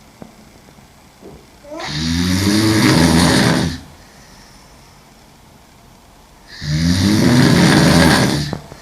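A woman snoring loudly while sleeping on her back: two long snores about five seconds apart, each lasting about two seconds, the first starting about two seconds in, with quiet between them.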